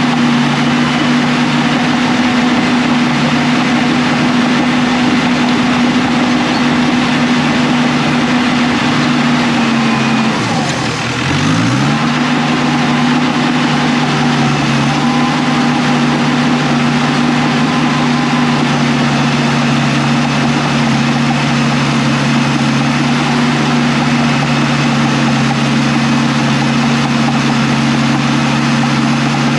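Diesel engine of heavy earthmoving equipment running steadily at high revs. About ten seconds in, its pitch drops sharply for about a second, then climbs back.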